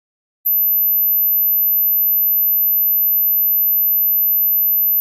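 Electronic dog-whistle tone: a single very high-pitched, steady pure tone that starts about half a second in and holds without change.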